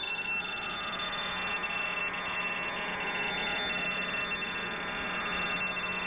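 Shortwave radio receiver audio from a web-SDR tuned near 5340 kHz: a steady hiss of static with a low steady hum, faint tones gliding downward in pitch in the first second, and thin steady high tones above the static.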